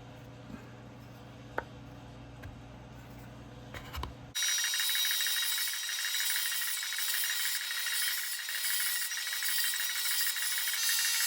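Quiet room tone with a few faint clicks, then a little over four seconds in a steady rasping noise starts abruptly and runs on: a tool working wood.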